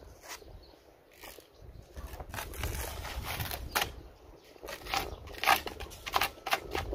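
Irregular crackling and scraping of polystyrene foam being broken and worked by hand, the sharp crackles coming thicker from about two seconds in, over a low rumble.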